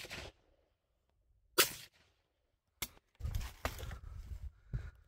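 Beretta 686 over-and-under shotgun fired at clay targets: the first shot is dying away at the start, and a second loud shot comes about a second and a half in. A sharp click follows about a second later, then a low rumble.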